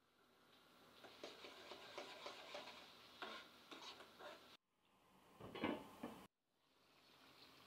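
Slotted metal spatula stirring and scraping a spice paste in a karahi with many small scrapes and clicks over a faint sizzle. After a brief break about halfway through, there is a louder clatter as a glass lid is set on the pan.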